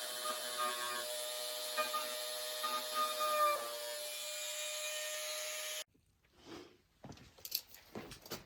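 Handheld power tool running at a steady whining pitch with a rough grinding hiss, dipping briefly in pitch about three and a half seconds in as if loaded. It cuts off abruptly about six seconds in, leaving a few light knocks and handling sounds.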